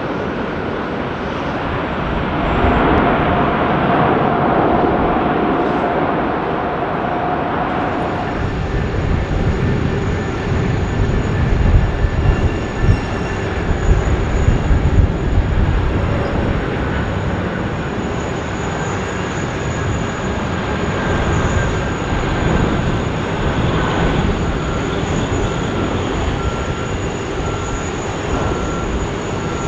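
Jet airliner engines during landing: a steady, rumbling roar that swells to its loudest in the middle, with a thin engine whine early on.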